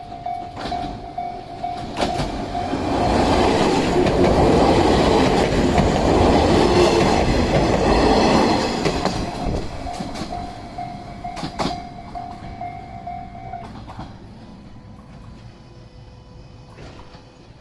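JR 115-series electric train running over a level crossing: the wheel and rail noise swells to a loud, steady clatter with sharp rail-joint clicks, then fades over the last several seconds as the train moves away. A level-crossing warning bell rings with an even pulse through the passage and stops about 14 seconds in, once the train has cleared.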